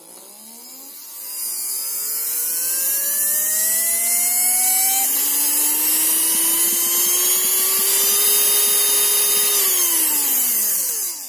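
Brushed DC motor on a PWM speed controller spinning up slowly on a ten-second soft start: its whine climbs steadily in pitch and grows louder over the first couple of seconds. Near the end it is switched off and winds down over about a second and a half, the pitch falling away.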